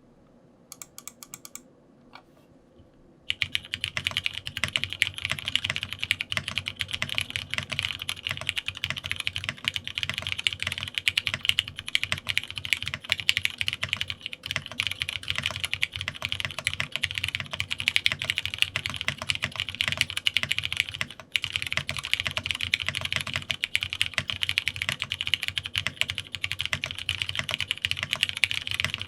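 Typing on a Geonworks Frog TKL keyboard with lubed Cherry MX Brown tactile switches and JKDK PBT keycaps, no case foam. A few single key presses come first, then fast continuous typing from about three seconds in, with one brief break about two-thirds of the way through.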